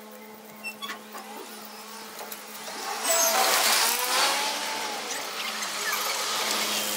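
A car drives past on the street. Its sound swells about three seconds in and then fades over the next couple of seconds.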